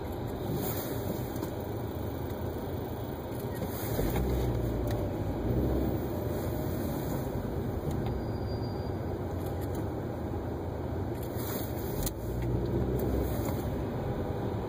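Car driving in traffic, heard from inside the cabin: a steady rumble of road and engine noise that swells louder twice, about four seconds in and again around twelve seconds.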